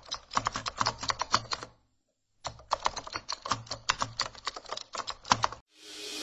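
Typing sound effect: rapid keyboard keystroke clicks in two runs with a short pause between them. A rising whoosh swells in near the end.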